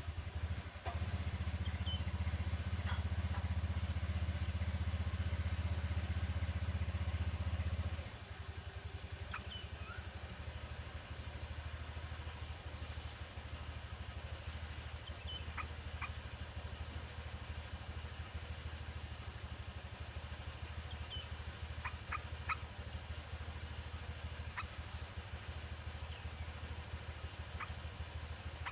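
Scattered short chirps from a trucukan (yellow-vented bulbul) over a low motor-like hum that drops sharply about eight seconds in, with a steady high thin whine throughout.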